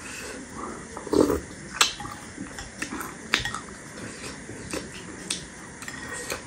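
Close-up eating sounds: a metal spoon clicking against a glass bowl and wet mouth smacks as spicy panipuri water is sipped from the spoon. There are several sharp clicks spread over the seconds, with a short slurp about a second in.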